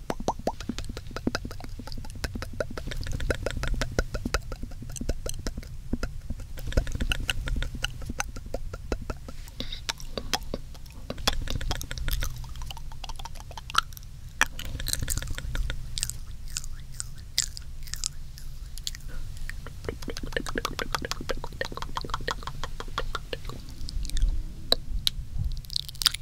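Close-up, layered wet mouth sounds: a dense, rapid run of tongue and lip clicks and smacks that goes on without a break.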